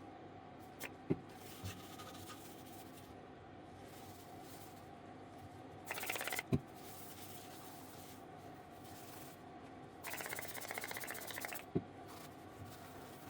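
Two sputtering bursts of spray hiss, a short one about six seconds in and a longer one of about a second and a half near ten seconds, with sharp clicks around them. A faint steady hum runs underneath.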